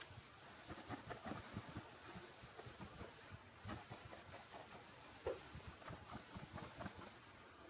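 Faint rustling and soft scattered taps, with one brief louder squeak-like sound about five seconds in.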